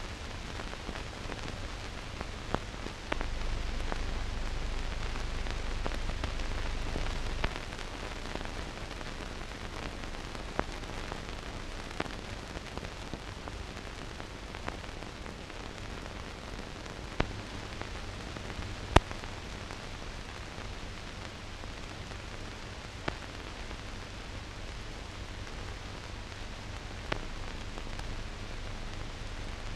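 Blank soundtrack of a silent newsreel film: steady hiss with a low hum and scattered clicks and pops, one sharper pop about nineteen seconds in. The low hum gets louder for a few seconds from about three seconds in.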